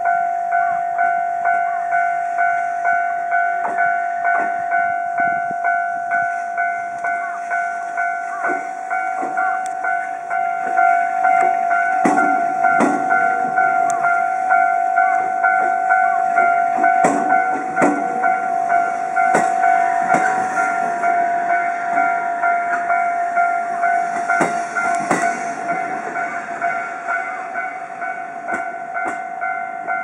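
Japanese railway level-crossing alarm ringing over and over at an even pace with its steady electronic tone. A JR Central 313 series train crawls past at very low speed, and its wheels give scattered clacks over the rail joints.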